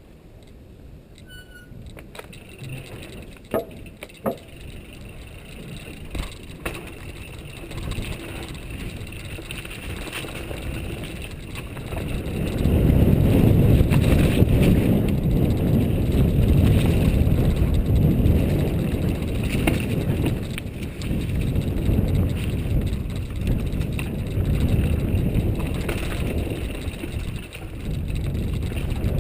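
Mountain bike ridden down a dirt trail: tyre and drivetrain noise with a few sharp knocks in the first several seconds, then a loud low rumble from wind on the microphone as speed picks up about twelve seconds in.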